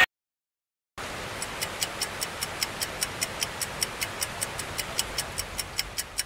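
Clock-ticking sound effect, fast and even at about five ticks a second, over a steady hiss; it starts about a second in after a moment of silence.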